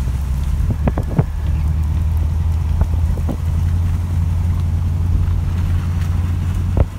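Steady low rumble of a car driving, heard from inside the cabin, with a few scattered short ticks.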